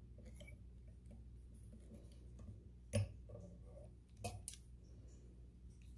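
A few faint clicks and ticks from a wire whip-finish tool working thread onto a fly hook, the sharpest about three seconds in and a quick pair a little after four seconds, over a faint low hum.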